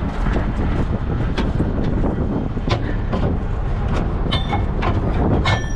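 Steady low rumble of the heavy rotator tow truck's diesel engine running, with metal gear in an open tool compartment knocking and clanking. Twice near the end, a metal piece clinks with a short ringing tone.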